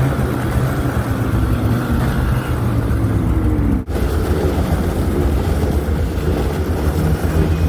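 Snowmobile engine running under throttle, its pitch rising and falling, with a brief break about four seconds in.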